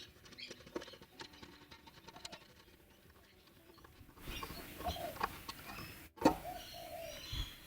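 Scattered light clicks and clinks of hand tools and a screw being handled, with a sharp knock about six seconds in.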